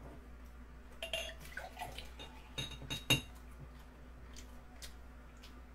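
Glass soju bottle clinking lightly against a drinking glass as soju is poured: several small clinks about one to three seconds in, the loudest and most ringing just after three seconds.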